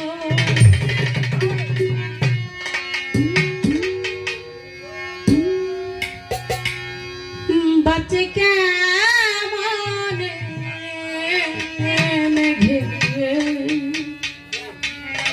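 Live Baul folk music: hand drums beating, their low strokes bending in pitch, under held instrument tones, and a woman's singing voice with a wavering line from about eight seconds in.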